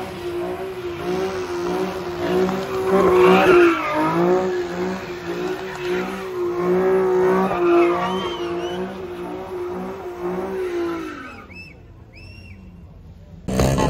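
A car engine held at high revs while its tyres squeal through a donut, the pitch wavering with the throttle. About eleven seconds in the revs drop away and the squeal stops, leaving a few short high chirps.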